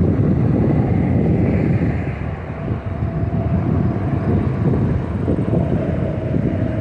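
Lockheed C-130H Hercules' four Allison T56 turboprop engines passing low overhead on landing approach: a loud, rough rumble, with a steady hum coming up out of it about two and a half seconds in.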